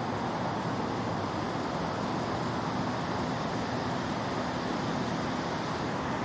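Steady, even hum of city traffic, unchanging throughout.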